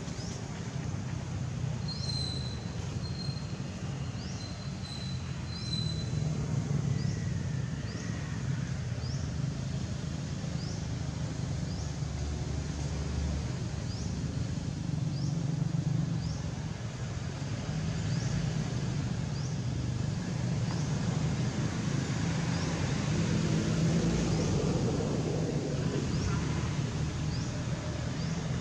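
Outdoor ambience: a steady low rumble, with a short, high, rising chirp repeated about once a second.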